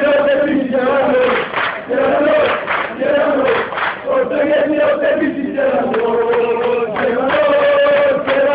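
Football supporters in the stands singing a chant together, many male voices close by, in short repeated phrases about a second long.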